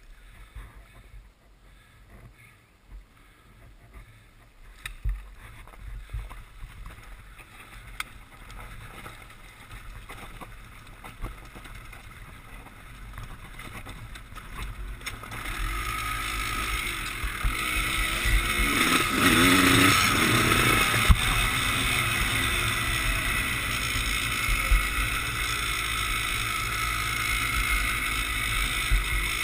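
Two-stroke dirt bike engine heard from the rider's helmet, ticking over quietly with knocks of the bike moving at first. About halfway through it rises as the bike rides off down a dirt trail, with wind rushing over the microphone and revs rising and falling, loudest about two-thirds of the way in.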